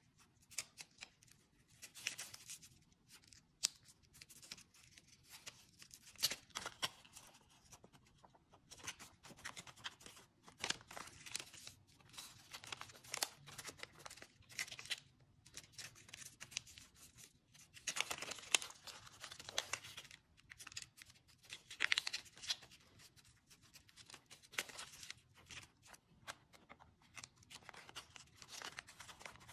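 A square of origami paper being folded and creased by hand: irregular short rustles and scrapes as fingers press and smooth the folds, loudest about two thirds of the way through.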